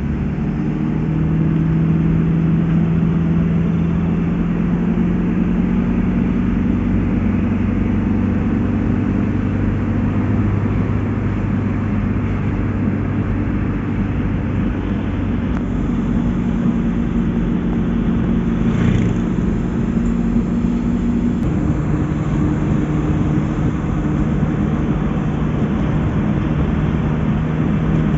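Car engine and road noise while driving, steady and loud. The engine's pitch shifts a couple of times as its speed changes.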